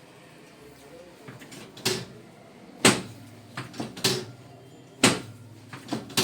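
A series of sharp knocks, about six or seven irregularly spaced over a few seconds, each dying away quickly, the loudest about three and five seconds in.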